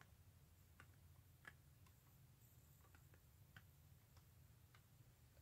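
Near silence with faint, irregular ticks of acrylic paint dripping from the edge of the tilted canvas onto the foil tray below, over a low room hum.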